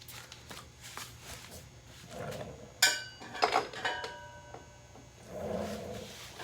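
Metal tools clinking against metal during work on a motorcycle's rear axle nut: light clicks, then two sharp ringing clanks a little before and after three and a half seconds in.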